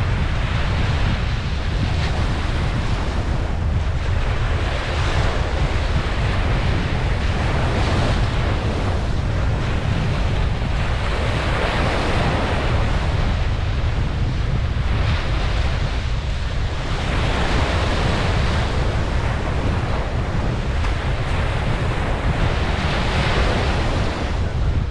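Ocean waves breaking and washing up a beach, the surf swelling and easing every few seconds over a steady low rumble of wind buffeting the microphone.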